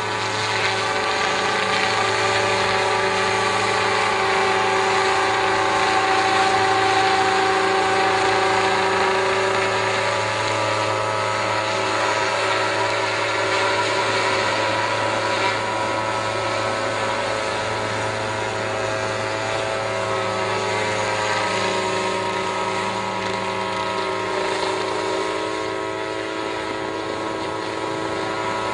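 Small engine of a motorised sprayer running steadily at constant speed.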